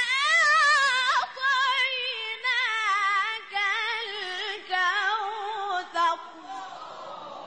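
A teenager's melodic Quran recitation: one high solo voice holding a long ornamented phrase with fast wavering pitch, sung in short segments that step down in pitch. It breaks off about six seconds in, leaving a fading echo.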